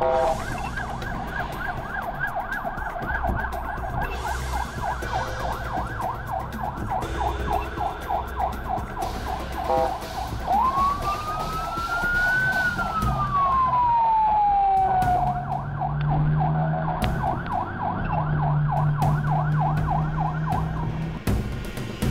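Emergency vehicle siren sounding a fast warbling yelp. In the middle it switches for a few seconds to one slow wail that rises and falls, then goes back to the yelp.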